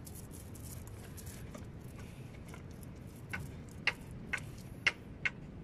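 Paint roller worked in a plastic paint tray: a run of light, sharp clicks and taps, about two a second, starting a little past halfway, over a faint steady background.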